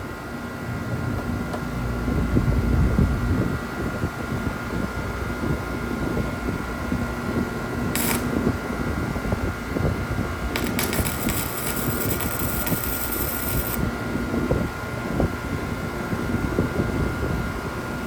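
S7 MIG 200 welder with its fan humming steadily and a stretch of welding-arc crackle lasting about three seconds past the middle. At 10 amps the arc is still burning through the thin steel plate.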